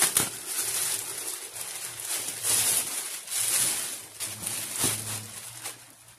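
Clear plastic bag and white non-woven fabric dust cover crinkling and rustling in swells as a backpack is pulled out of its packaging, with a couple of sharp clicks. A low hum-like tone comes and goes underneath.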